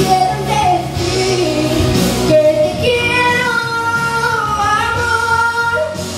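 A woman singing a Spanish-language pop ballad live into a microphone, with piano accompaniment. She holds one long, slightly wavering note through the middle.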